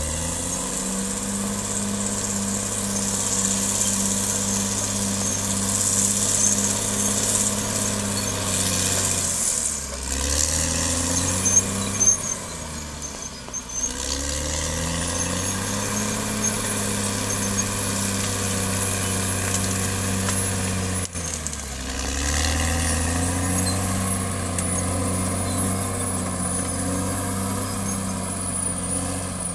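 CAT D6R XL bulldozer's diesel engine running hard, its note sagging and climbing back up three times. A few sharp clanks come a little before the middle, and a thin high whine sits above the engine in places.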